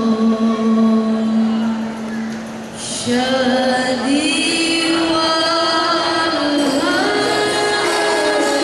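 Girls' maulid habsyi group singing a devotional chant in long held notes; one held note fades away near the three-second mark, then a new phrase begins with several voices together.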